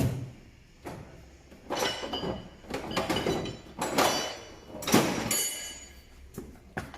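Metal knocks, scrapes and clinks as a steel suspension-arm pull-down tool is handled and fitted to a car's lower arm, with short metallic ringing around the middle of the stretch.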